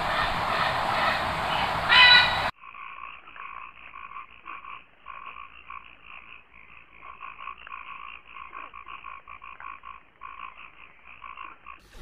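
Loud, dense wildlife noise with a short, louder bird-like call near the two-second mark, cutting off abruptly. Then frogs call in a rapid, pulsing chorus that stops and starts in short runs.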